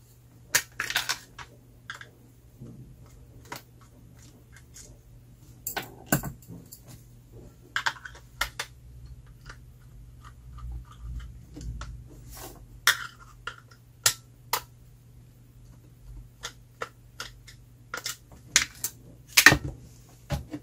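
Irregular sharp clicks and knocks as the plastic case of a Casio Algebra 2.0 calculator is pried apart and handled, with a small screwdriver knocking against it. The loudest knocks come about six seconds in and near the end.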